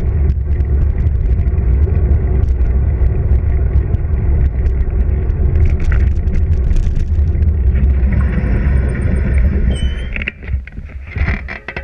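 Wind buffeting a bicycle-mounted action camera's microphone, with tyre rumble and small rattles over asphalt. Near the end a thin high squeal sounds as the bike slows, and the rumble drops away.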